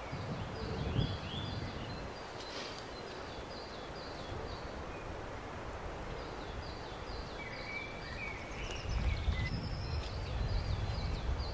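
Woodland songbirds singing: repeated phrases of short, high, falling notes, three phrases in all, with lower chirps from another bird about eight seconds in. A low rumble rises under them in the second half.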